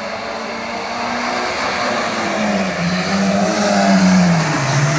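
Small rally hatchback's engine driven hard as the car approaches, growing louder; its note drops in pitch over the last couple of seconds as the car slows for the corner.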